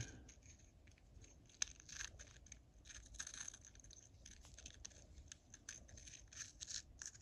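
Faint clicks and scrapes of nitrile-gloved fingers handling a small penlight head, seating its LED board in the reflector's hole, with one sharper click about one and a half seconds in.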